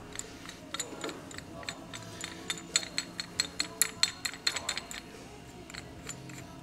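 A run of light metallic clicks and clinks, densest in the middle, as a steel bearing separator clamped around a transmission gear is worked loose by hand.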